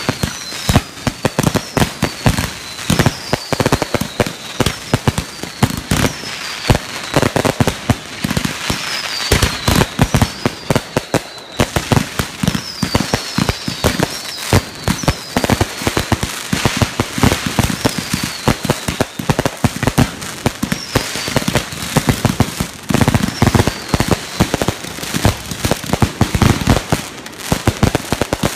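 Fireworks fired from the ground at close range, going off in a dense run of sharp pops and crackles, with a short falling whistle every second or so.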